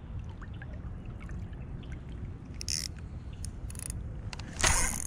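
River water running around a wader's legs as a low steady rumble, with scattered faint clicks and ticks from a spinning reel being handled. A brief louder burst of water noise comes near the end.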